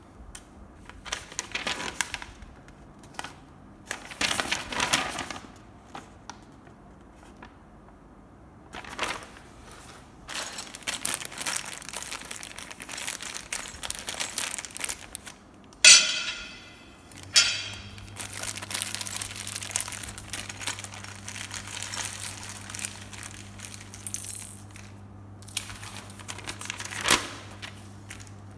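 Paper rustling as an instruction sheet is handled, then a thin plastic hardware bag crinkling and being torn open, with one sharp loud rip a little past halfway. Small parts are tipped and handled on a hard floor near the end, and a steady low hum comes in after the rip.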